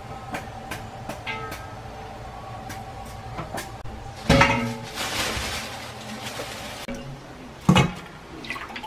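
Kitchen noises by a pot on the stove: a steady low hum with light clicks, a sharp clatter about four seconds in followed by a hiss for a second or two, and another clatter near the end.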